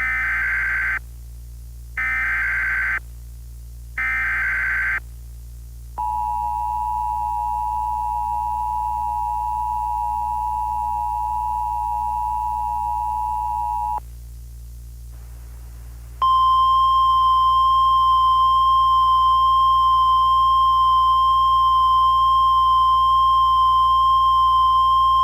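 Emergency Alert System tones: three one-second bursts of screechy digital header data about a second apart, then the two-tone attention signal held steady for about eight seconds. After a short pause a single steady alert tone begins.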